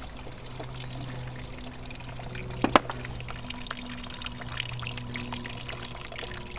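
Crushed red grapes and juice pouring and trickling out of a plastic bag into a plastic barrel, with one sharp knock a little under three seconds in.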